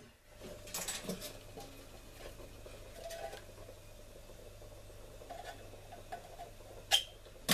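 Knife blade scraping and prying at the lid of a small metal tin whose ring pull has broken off: a few faint scrapes, with a sharp click near the end.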